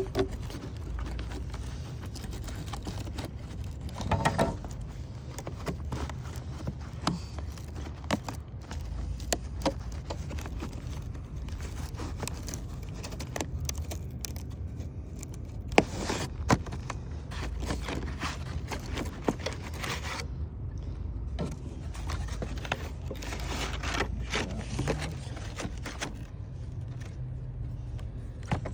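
Scattered scrapes, clicks and knocks of a flat crowbar and broken wood-shake pieces being pried and pulled out from under a shingle course, with one sharper knock about halfway through, over a low steady rumble.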